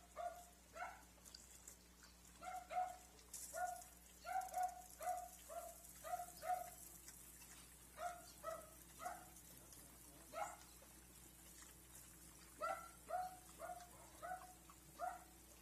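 A dog barking repeatedly, short sharp barks coming in quick runs of two to six with pauses of a second or two between them.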